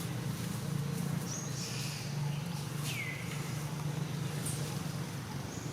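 A few short, high-pitched animal calls: a brief chirp, then one falling whistle about three seconds in, and another short high call near the end. A steady low hum runs underneath.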